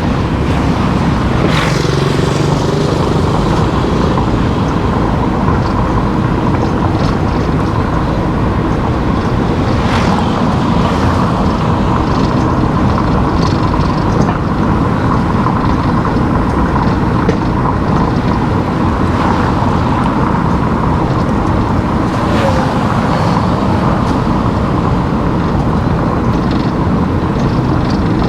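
Steady road noise of a car driving: engine and tyre noise running evenly, with a few brief clicks.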